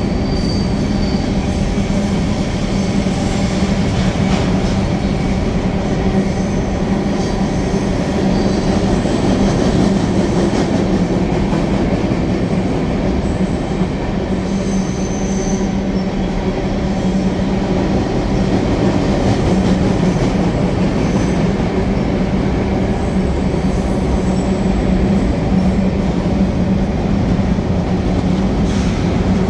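Freight train of tank cars and hopper cars rolling past: a steady rumble of steel wheels on rail with a low hum, and a couple of brief high wheel squeals.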